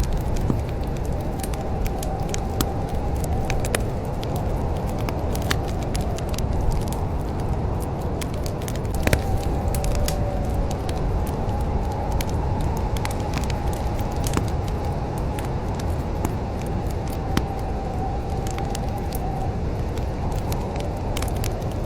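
Wood fire crackling: irregular sharp snaps and pops over a steady low rumble of flames, with a faint thin whistle wavering in and out.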